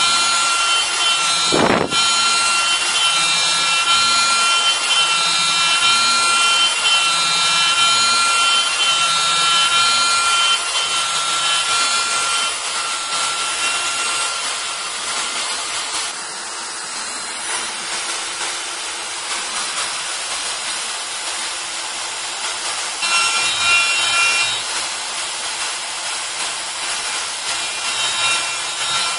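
Kress router used as the spindle of a Stäubli TX60 robot arm, running with a steady high whine while its end mill cuts into a wooden block with a rasping, hissing cutting noise. A single sharp click comes about two seconds in; the whine eases through the middle and comes back strongly near the end.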